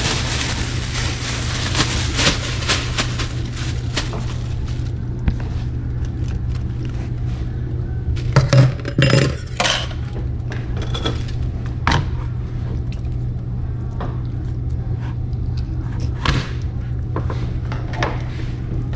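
Kitchen tap running for the first few seconds, then shut off, followed by scattered clicks and clatter of handling at the sink while cleaning fish. A steady low hum runs underneath.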